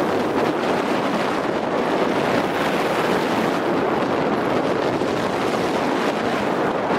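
Steady rushing of wind buffeting the microphone during a fast descent down a groomed ski slope, mixed with the hiss of sliding over packed snow.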